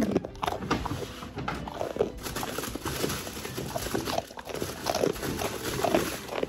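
Pit bull chewing a treat close up: a run of irregular crunching and clicking bites.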